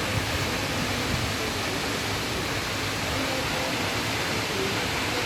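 Steady rushing of the Marmore Falls' cascading water, an even noise with no breaks.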